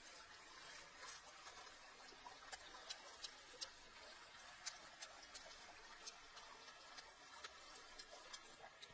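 Faint, irregular crisp clicks and crackles from fried crickets in chili sauce, picked out of a clay bowl by hand and eaten, with about a dozen sharper ticks scattered over a quiet background.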